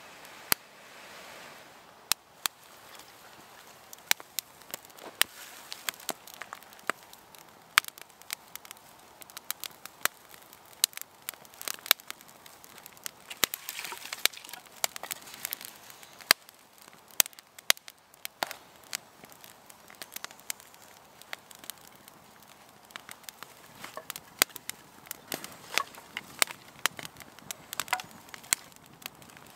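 Small campfire of dry grass tinder and thin twigs catching and burning, with frequent sharp, irregular crackles and pops.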